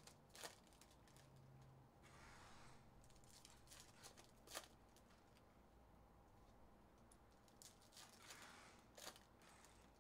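Faint rustling and a few light clicks of trading cards being picked up, shuffled through and set down on a stack; otherwise near silence.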